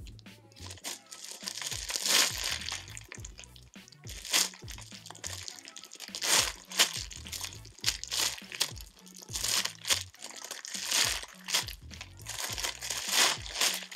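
Plastic wrapping and mesh netting around a Puni Maru Super Jumbo King Banana squishy crinkling with each squeeze of the hands, in a string of separate bursts, over background music.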